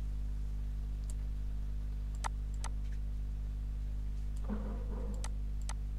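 A handful of short, sharp computer mouse clicks, scattered irregularly across several seconds, over a steady low electrical hum.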